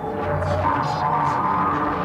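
Live electronic sound-installation music: layered sustained tones over a deep bass note, with a few short hissy swishes in the first second and a half.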